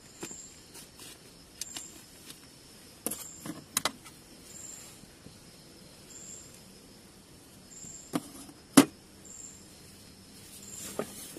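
A cricket chirping steadily about once a second, high-pitched, with a few sharp clicks and rustles from movement under a blanket; the loudest click comes about three-quarters of the way in.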